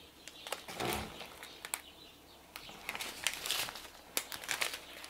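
Clear plastic packaging of diamond-painting drill strips crinkling and crackling as it is handled, with a soft bump about a second in.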